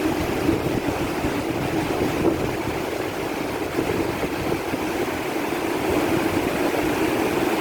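Steady rushing of a rain-swollen stream, its water running high and fast in the channel.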